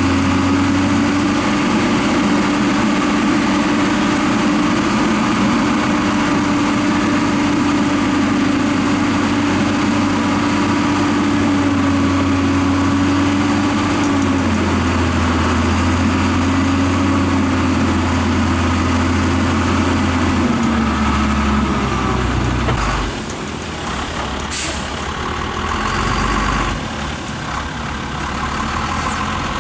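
Dongfeng Hoàng Huy three-axle dump truck's diesel engine running under load as it drives the hydraulics lifting the tipper bed, with a steady tone over the engine that shifts down once. About three-quarters of the way through the engine eases off, and a short hiss of air follows a couple of seconds later.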